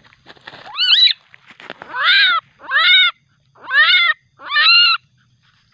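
Young Asian palm civet giving five loud, pitched cries of about half a second each. The first rises in pitch; the other four arch up and back down, about one a second. These are agitated, aggressive calls.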